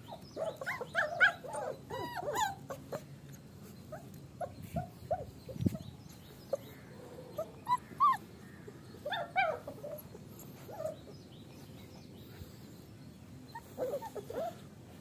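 Young puppies whimpering and squeaking in short, high whines, coming in scattered clusters with pauses between them.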